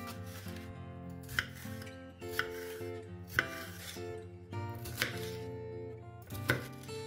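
Chef's knife dicing red bell pepper on a bamboo cutting board: five sharp strikes of the blade on the board, a second or so apart. Guitar background music plays underneath.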